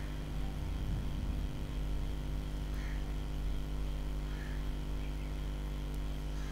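Steady low electrical hum with a buzz of evenly spaced overtones and a light hiss, the background noise of the recording setup, with no speech.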